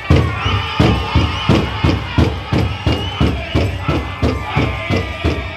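Powwow drum group playing a men's chicken dance song: a large hand drum struck in a steady beat about three times a second, with high-pitched singing over it.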